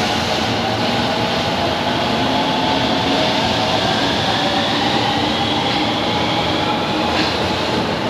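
Osaka Metro Tanimachi Line 22 series subway train running, a steady rumble and rail noise with a faint whine that slowly slides in pitch.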